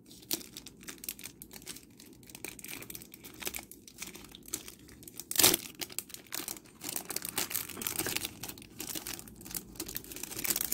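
Thin clear plastic photocard sleeve crinkling as it is handled and pulled open by hand, with one louder crackle about halfway through and denser crinkling after it.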